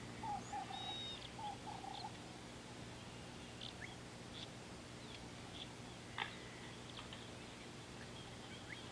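Wild birds calling: one bird gives short low notes in groups of two or three for the first couple of seconds, then only scattered faint high chirps from other birds, over a steady low hum.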